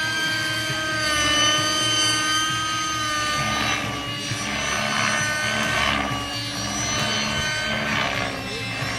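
Radio-controlled T-Rex 600 model helicopter flying aerobatics overhead. Its drive gives a steady whine that shifts slightly in pitch, and the rotor blades whoosh in repeated swells as it manoeuvres.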